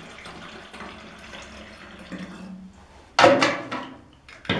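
Water running into a garden sprayer's tank until about two and a half seconds in, then a loud clunk about three seconds in and a sharper knock near the end.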